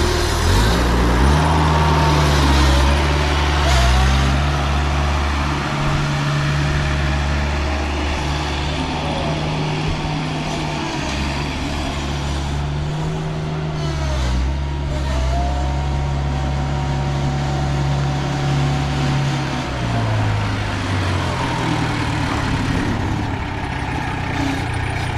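Kubota V1903 four-cylinder diesel engine of a homemade hydrostatic-drive tractor running, its speed rising and falling several times as the tractor is driven, with a fainter whine that rises and falls along with it.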